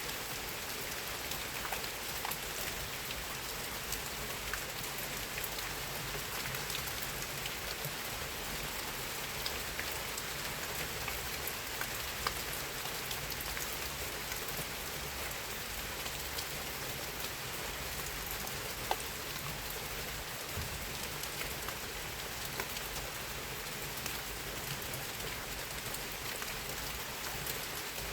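Steady rain falling, a constant hiss with many individual drops ticking on a hard surface.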